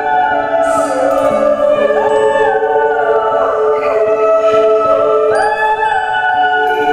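A woman singing while bowing a violin: long held notes that slide up and down between pitches, with several lines sounding at once.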